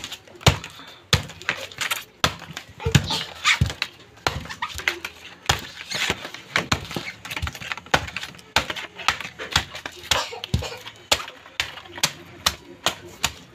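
Fibrous husk being cut, pried and torn off a sprouted coconut: irregular sharp clicks and knocks, a couple a second, with scratchy tearing of the fibres in between.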